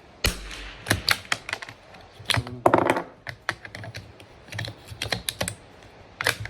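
Tikka .22 LR bolt-action rifle: a subsonic shot about a quarter second in, then a quick run of sharp metallic clicks and clacks from handling the rifle, as when the bolt is worked and the next round chambered.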